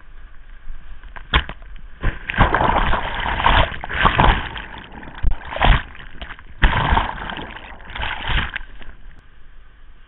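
Whitewater rapids breaking over a boat and its camera: a series of loud surges of splashing, sloshing water, the first about a second in and the last fading near nine seconds, over the steady rush of the river.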